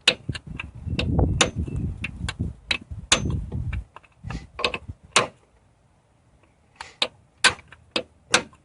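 Hammer tapping a 2-inch steel cup freeze plug deeper into the bore of a Jeep 4.0 engine block: a series of sharp metallic taps, about two a second, with a pause of about a second and a half past the middle.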